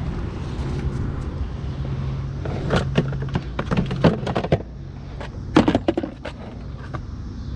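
Scrap wire and metal clattering and knocking as it is handled in a dumpster, in two flurries of sharp knocks, over the steady low hum of an idling vehicle engine.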